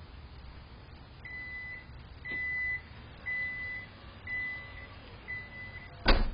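Electronic beeping: five steady high-pitched beeps of about half a second each, roughly one a second, then a loud thump near the end.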